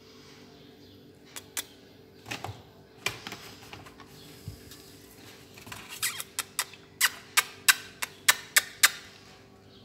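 A series of sharp clicks, a few scattered ones at first, then a regular run of about three a second that grows loudest near the end, over a faint steady hum.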